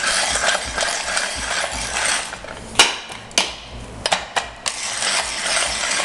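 A PeDe wall-mounted conical burr coffee grinder being hand-cranked, its burrs and crank making a steady grainy mechanical rattle. The cranking pauses for a couple of seconds midway, when several sharp clicks and knocks sound, then starts again.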